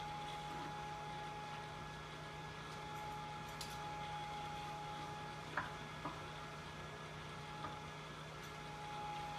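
The blower fan of an inflatable T-Rex costume runs with a steady hum and a thin whine. A few light clicks come about halfway through.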